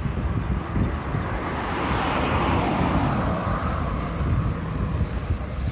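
A car passing close by, its tyre and engine noise swelling about two seconds in and fading again near the end, over a steady low rumble of wind on the microphone.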